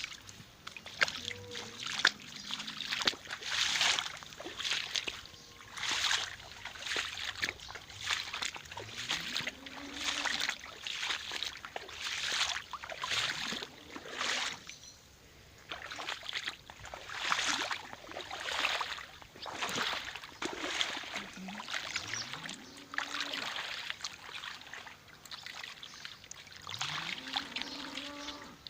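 Wet splashing steps through soaked ground or puddles, a step about every second or so, with a few short low rising calls.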